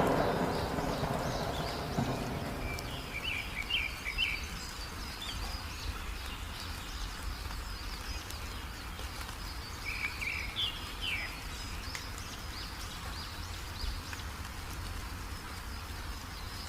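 Steady rain with the rumble of a thunderclap dying away in the first couple of seconds. A small songbird gives two short bursts of quick chirps, about three seconds in and again about ten seconds in.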